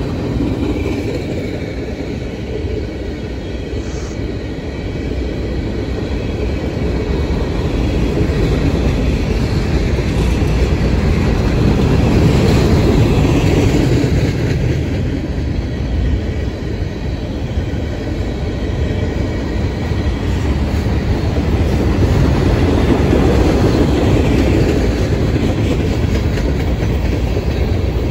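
Freight train's covered hoppers and boxcars rolling past close by: a continuous rumble of steel wheels on rail that swells and eases in loudness every several seconds.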